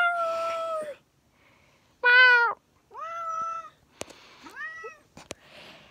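Domestic cat meowing four times in a row, the loudest call about two seconds in, with a couple of sharp clicks near the end.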